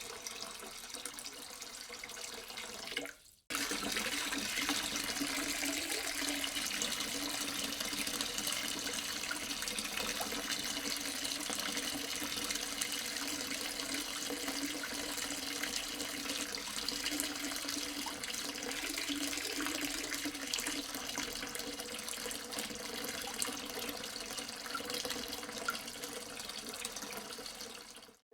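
Water running and splashing steadily from a small DIY water pump. A short break about three seconds in, after which the flow is louder.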